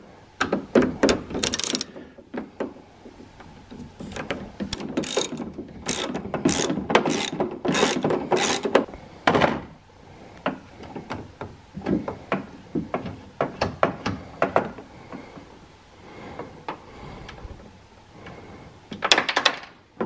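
Ratchet wrench clicking as it turns a screw out through two long socket extensions, in quick runs of clicks that are busiest in the first half and then sparser and quieter.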